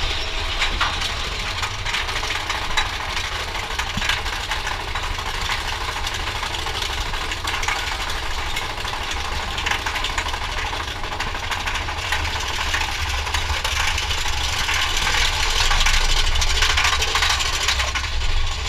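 Mine-train roller coaster running along its track: a steady low rumble of the wheels with fast clattering and rattling from the cars, growing a little louder about three-quarters of the way through.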